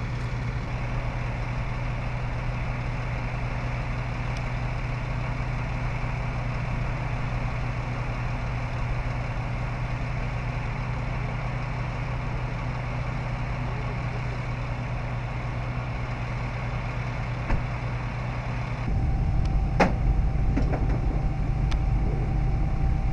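Emergency vehicles' engines idling with a steady low hum. About 19 seconds in it changes abruptly to a louder rumble with a steady whine and a sharp click.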